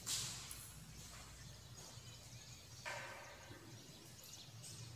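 Faint room tone with soft strokes of a marker writing on a whiteboard, the clearest starting about three seconds in.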